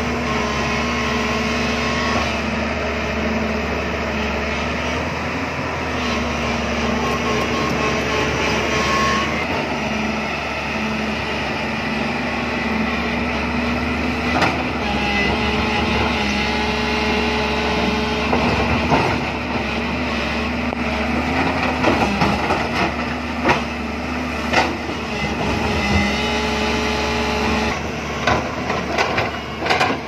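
JCB crawler excavator's diesel engine running steadily under working load, with scattered knocks and clanks of the bucket and rock that come more often in the second half.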